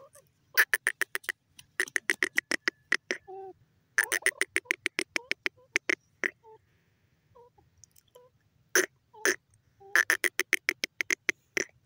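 Female grey francolin calling close by: bursts of rapid clicking notes, about ten a second, in four runs, with scattered single notes between them.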